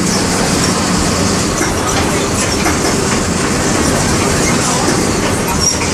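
Volksbus 17-230 EOD city bus with its MWM 6.12 TCE 225 hp inline six-cylinder diesel running under way, heard from on board as a steady rumble with clattering body and road noise.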